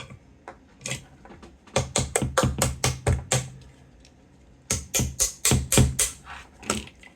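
Rapid metal-on-metal tapping on the thin toothed locking washer on a 1979 Chevy van heater blower motor shaft, in two quick runs of about six or seven taps a second, knocking the seized washer loose.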